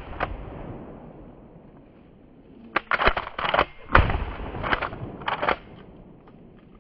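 Pump-action shotgun fired once about four seconds in. Before and after the shot come a run of sharp metallic clacks as the pump is racked, the second racking throwing out the spent shell.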